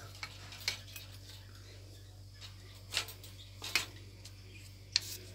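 Quiet kitchen room tone with a low steady hum, broken by a few light clicks and knocks of kitchenware being handled.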